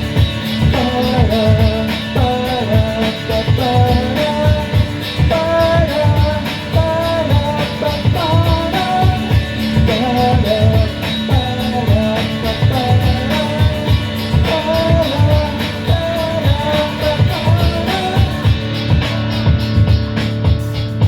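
Rock band playing an instrumental stretch: a repeating electric guitar melody over bass and a steady drum beat. Near the end the high cymbal-like hiss drops away and the band thins out.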